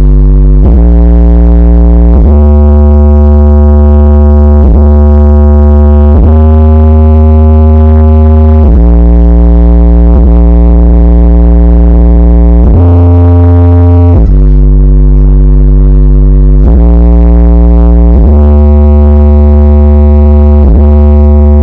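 Very loud bass-heavy electronic music blasted from a Semar R7 carnival sound system with massive subwoofers: long held synth notes with deep bass, changing pitch about every one and a half to two seconds.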